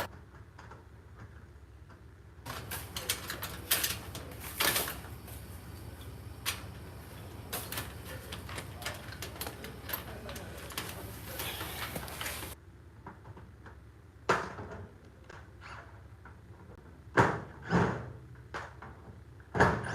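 Clicks, rattling and a few sharp knocks of metal garage door lock hardware being handled and fitted, with a busier clattering stretch early on and separate knocks in the second half.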